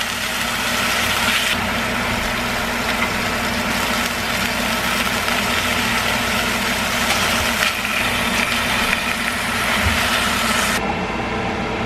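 Thin-sliced beef brisket sizzling and spattering in hot oil in a frying pan, turned with tongs, over a steady low hum. The sizzle changes abruptly a few times as batches change.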